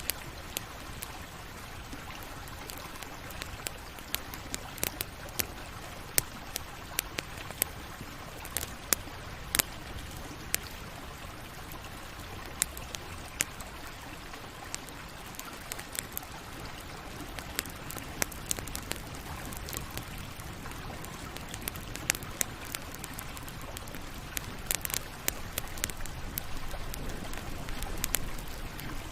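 Campfire crackling: a steady hiss of burning wood with frequent irregular sharp pops and snaps.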